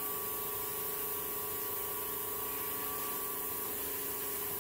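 Variable-speed 8-inch brushless bench grinder running steadily with no grinding: a steady hum over a hiss, with a fainter higher tone that fades about four seconds in.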